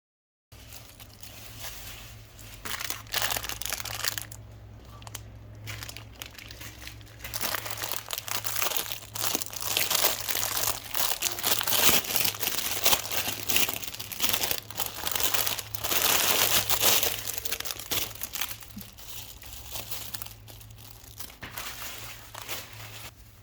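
Plastic packaging crinkling and rustling as it is handled, in dense crackles that grow busier and louder through the middle and ease off near the end, over a steady low hum.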